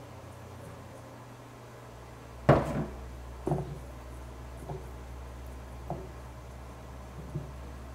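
Knocks on a steel mixing bowl as the mixer-grinder jar is emptied of ground oat flour and the flour is worked by hand. There is one sharp knock about two and a half seconds in, then four lighter knocks about a second apart.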